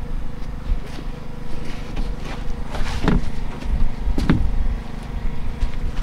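A steady low motor hum, with a few short knocks about two, three and four seconds in.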